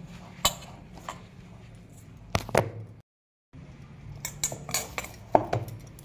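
Hands kneading wheat-flour dough in a stainless-steel bowl: irregular knocks and clinks as fingers and dough strike the metal, with a soft rubbing between them. The sound cuts out completely for about half a second midway.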